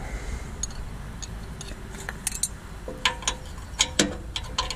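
Light clinks and clicks at irregular intervals, clustered about two seconds in and again near the end, over a low steady machine hum.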